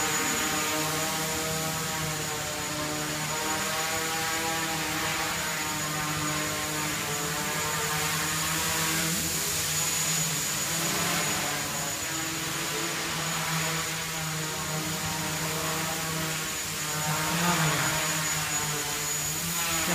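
Small quadcopter's four motors and propellers buzzing steadily as it hovers and flies, the pitch of the whine wavering up and down as the throttle is adjusted.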